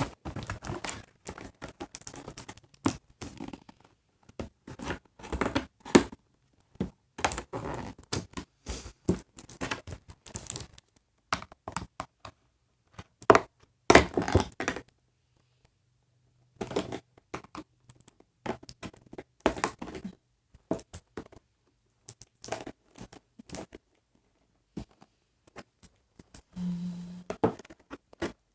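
Cardboard and plastic doll packaging being cut and torn open by hand: irregular scrapes, crinkles, tearing and small thunks, with short pauses between.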